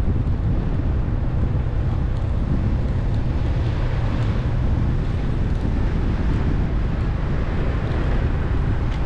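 Steady wind buffeting on the microphone of a moving vehicle, a dense low rumble with a hiss above it.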